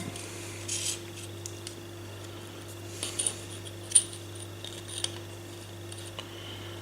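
Light metallic clicks and taps from a measuring tool handled against a sharpening stone, a few scattered knocks with the sharpest about four seconds in, over a faint steady hum.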